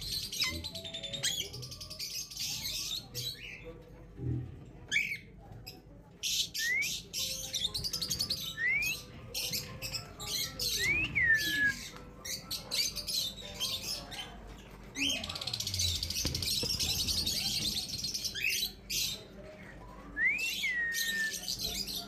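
Caged Alexandrine parakeets calling: a series of short rising whistled calls, a few ending in a held note, over stretches of dense, high chattering. A few low knocks come in between.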